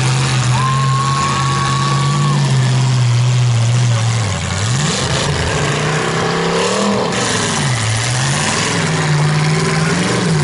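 Demolition-derby pickup truck engines running hard, the engine note dropping and climbing back up about three times as the trucks back up and drive on.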